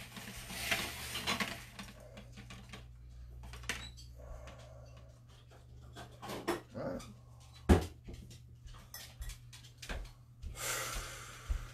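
Eggs being picked out of a glass egg tray and handled: scattered light clicks and rustles, with one sharper knock about two-thirds of the way through, over a low steady hum.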